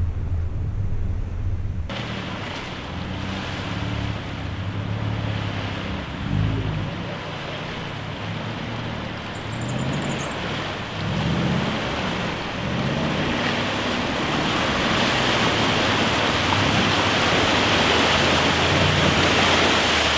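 Range Rover wading through shallow lake water: the engine runs under the rush and splash of water pushed aside by the wheels and bow wave, growing louder as it comes closer. For the first two seconds only a steady low engine hum is heard, then the sound changes suddenly to the water rush.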